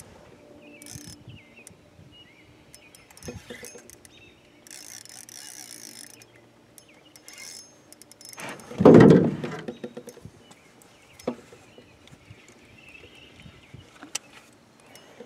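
Spinning reel being cranked against a large hooked fish, its gears and drag clicking and running as the fish pulls line. About nine seconds in comes one loud, low thump lasting about a second.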